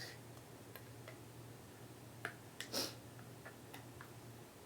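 Light, scattered clicks and taps of small plastic figurine parts being handled and pressed together: a head fitted onto a body and the figure set onto its base. The loudest tap comes nearly three seconds in.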